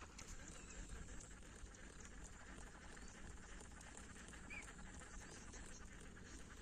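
Faint outdoor ambience: a low rumble with a few short, faint bird chirps.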